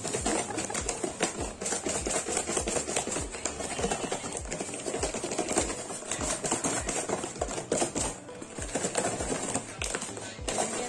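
Fried cheese ball donuts and sugar shaken in a plastic food container: a fast, uneven rattle of knocks and clicks, with background music underneath.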